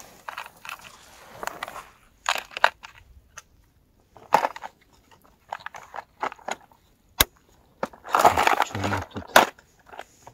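Clear plastic lure box being handled: hard lures clicking and rattling in their compartments, the lid and latches clicking shut and open, with rustling. A sharp click comes about seven seconds in, and a louder rattling spell near the end closes with a strong snap.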